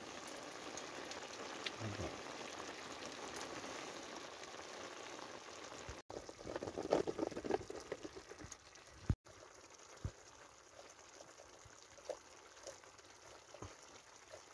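Meat, onions and chillies sizzling in a cast-iron Dutch oven, a steady hiss that cuts off suddenly about six seconds in. Then a short burst of sound as a carton of butter beans is tipped into the pot, followed by a much quieter simmer with a few light knocks.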